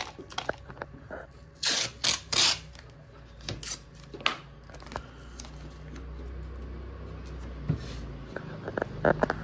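Masking tape pulled off its roll in a few short rips about two seconds in, then torn and smoothed onto glass, with scattered clicks of handling. A low rumble builds in the second half.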